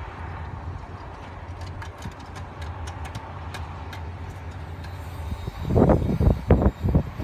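A truck-mounted crane's diesel engine running with a steady low hum while it holds a load on its hook. From about five and a half seconds in, wind buffets the microphone in loud, irregular gusts.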